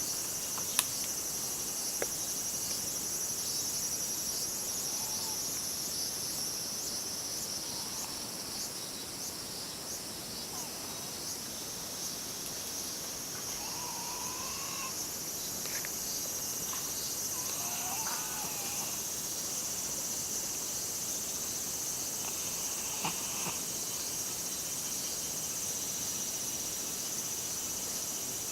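Steady, high-pitched shrilling of a summer insect chorus, with a few brief chirps near the middle.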